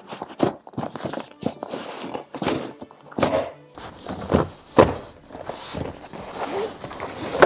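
Irregular series of thunks and knocks as a rear-seat side bolster is pushed and knocked into its clips, the loudest a little under five seconds in.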